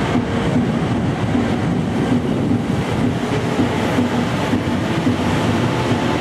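JR Kyushu KiHa 125 diesel railcar running steadily as it pulls out along the platform, a continuous low engine rumble.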